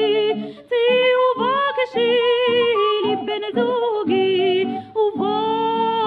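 A woman singing a Hebrew song to a traditional melody of oriental origin, with ornamented, gliding notes and instrumental accompaniment. The phrases break briefly about a second in and again near five seconds.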